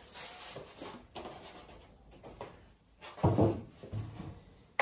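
White polystyrene foam packaging insert rubbing and creaking as it is lifted out of a cardboard box, followed by a dull knock about three seconds in and a lighter one just after.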